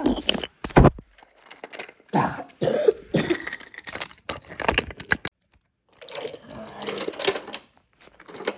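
A voice making coughs, throat-clearing and mumbled noises, with a few sharp clicks and knocks of wooden toy train pieces near the start.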